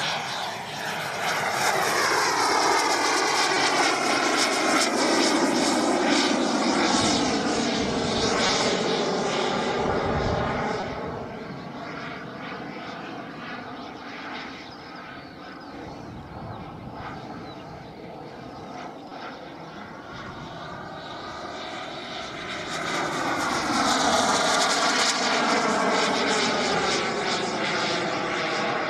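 Radio-controlled L-39 Albatros model jet flying overhead. Its engine whine swells and falls in pitch as it passes, fades while it is farther off, then swells again on a second pass near the end.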